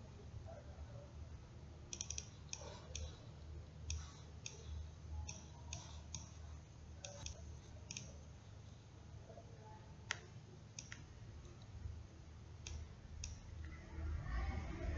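Computer mouse clicking: scattered sharp clicks, singly and in quick pairs, thinning out after about eight seconds, over a faint low hum.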